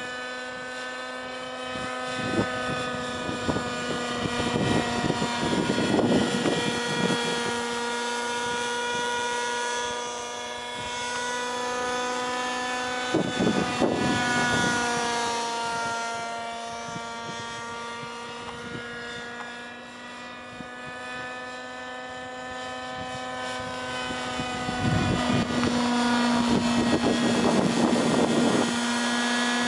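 Radio-controlled scale Airwolf (Bell 222) model helicopter in flight: a steady pitched whine from the drive with rotor chop. It swells three times as the model flies close by, about six seconds in, around fourteen seconds and near the end, and the pitch shifts slightly on each pass.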